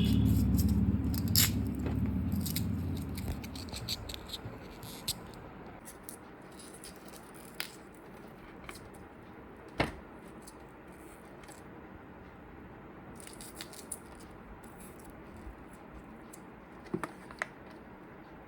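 Handling sounds at a workbench as glue is worked into the gaps of a speaker cabinet to seal them against air leaks: scrapes, rattles and scattered sharp clicks. A loud low rumble fades away over the first few seconds.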